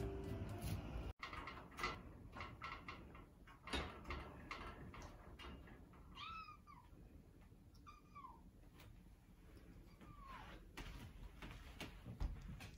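A kitten mewing three times, short calls that rise briefly and fall away, with light taps and clicks before them.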